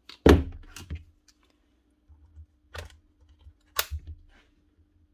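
A few sharp clicks and knocks of small parts being handled, the loudest about a quarter second in, as the carbon brushes are taken out of a Bosch GSH4 hammer to check them.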